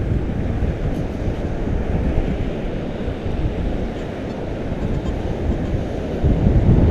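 Wind buffeting the microphone over ocean surf: a steady low rumbling noise that eases a little in the middle and gusts up again near the end.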